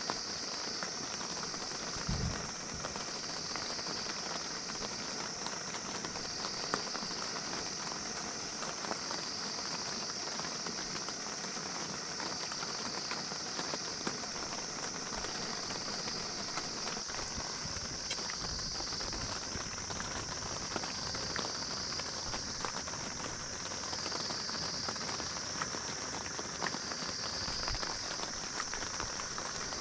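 Steady rain on a tent: a constant hiss that swells and eases every few seconds, with scattered ticks of drops. A single low thump about two seconds in.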